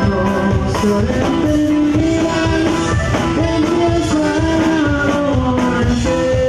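Live Mexican band playing a dance number: button accordion and saxophone with acoustic guitar, electric bass and a drum kit, all through a PA, the melody lines gliding over a steady beat.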